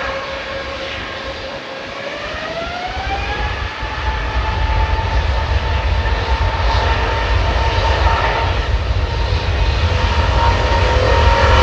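Jet airliner engines spooling up to takeoff thrust: a whine rises in pitch about two to three seconds in and then holds steady, while a deep rumble builds and grows steadily louder.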